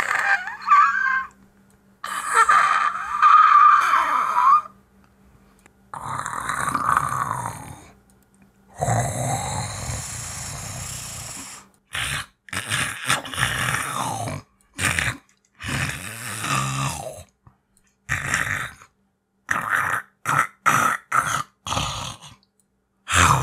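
A human voice actor performing cat-monster creature vocalizations. Wavering, pitched yowls come first, then two longer rough growls, then a quick run of short grunts and snarls.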